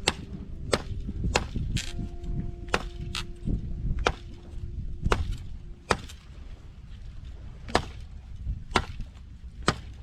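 A light axe chopping firewood: sharp, single blows roughly once a second, with a steady low rumble of wind on the microphone.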